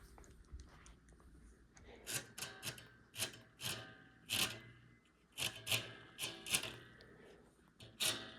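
Hard plastic parts being handled: about ten irregular clicks and knocks, starting about two seconds in, some with a brief ringing. No motor is running.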